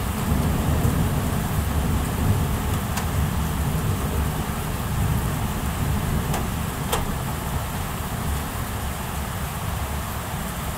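Rain falling steadily during a thunderstorm, with a deep, slowly fading rumble of thunder underneath. A few sharp ticks stand out, one about three seconds in and two more between six and seven seconds.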